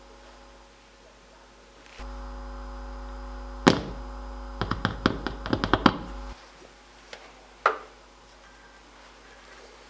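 A small electric motor hums for about four seconds and then switches off, with a loud knock and then a quick run of about ten sharp clicks while it runs; two more single knocks follow after it stops.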